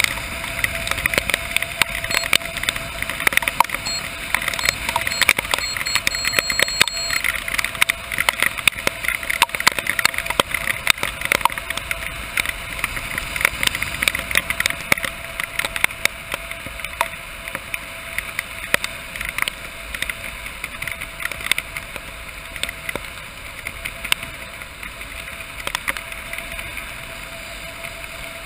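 Steady rushing wind across a skydiver's camera during a descent under canopy in rain, with many small taps of raindrops striking the camera, easing a little in the last few seconds.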